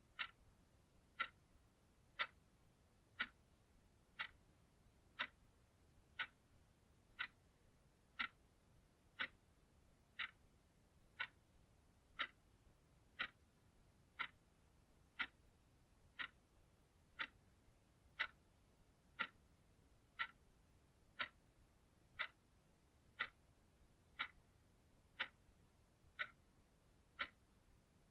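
Clock ticking steadily, one sharp, evenly spaced tick a second.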